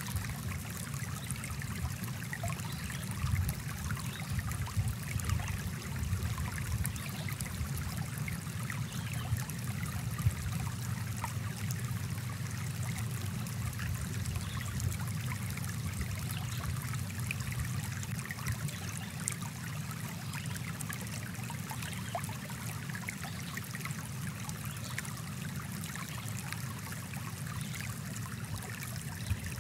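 Small forest stream flowing, a steady rush of water with many fine trickles and splashes.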